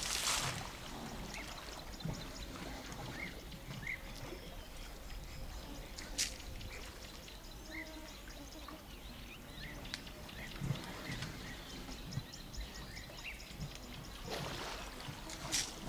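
African savanna elephants bathing in a muddy river: a burst of water splashing at the start as one rolls and sprays with its trunk, then quieter sloshing and trickling, and another stretch of splashing near the end.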